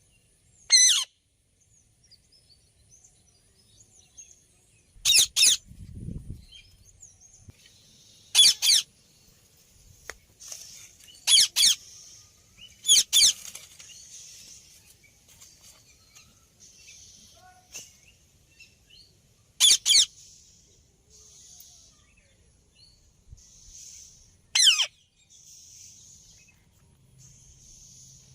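Rose-ringed parakeet giving loud, sharp screeching calls, about seven times, mostly in quick pairs, each falling in pitch, with softer chattering between them.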